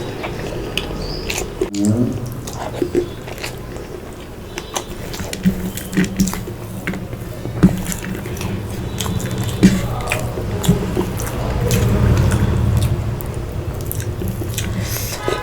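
Close-miked eating: a person chewing and biting food, with wet mouth clicks and smacks scattered irregularly throughout and a couple of sharper clicks past the middle.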